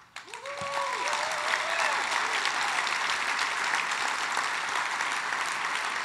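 Large audience applauding steadily, with a few whoops and cheers in the first couple of seconds.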